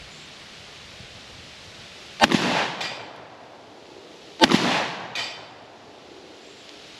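Two shots from a Remington Model 11 semi-automatic 12-gauge shotgun with a cut-down 18½-inch barrel, firing birdshot, about two seconds apart. Each shot is followed less than a second later by a fainter ringing clank.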